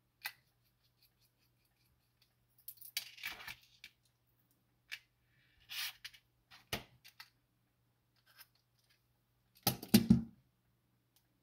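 Small metal clicks and scrapes from a screwdriver and a brass-and-steel clock movement being handled as its platform escapement is unscrewed and lifted off. A louder clatter of knocks comes about ten seconds in.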